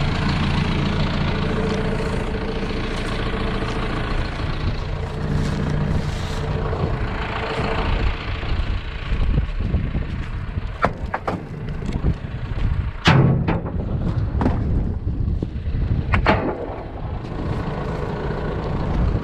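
John Deere 6430 diesel tractor engine running steadily. In the second half, several sharp clunks and knocks sound over it.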